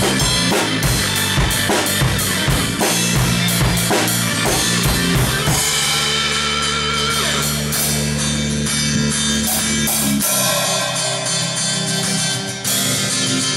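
Drum kit played along with a rock track carrying bass and guitar. Busy drumming for about the first five seconds gives way to held chords and bass with few hits, then the beat picks up again near the end.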